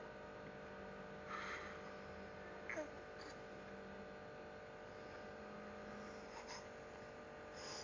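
A steady low hum, with a few faint soft sounds about a second and a half and just under three seconds in.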